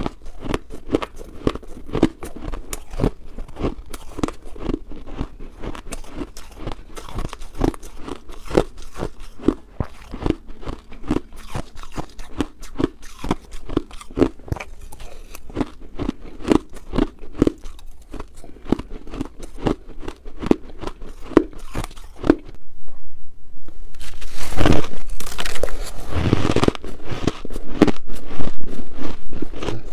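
Close-miked chewing of shaved ice: a steady run of small, crisp crunches several times a second. After a short lull about three-quarters of the way through, the crunching turns louder and denser.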